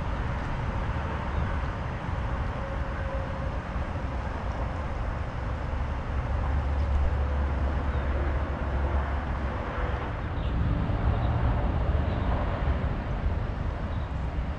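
Steady outdoor background noise with a heavy low rumble that swells for a few seconds in the middle, and a faint steady hum.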